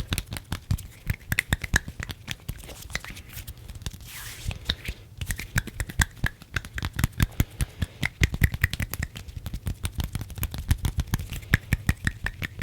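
ASMR hand sounds close to the microphone: a dense run of quick, dry clicks and crackles from fingers and palms moving and rubbing, with a brief hissing rub about four seconds in.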